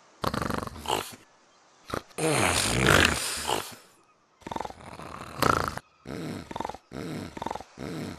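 A man's voice growling and barking like a dog: a few short growls, a long, loud snarling roar about two seconds in, then a run of short barking grunts about twice a second.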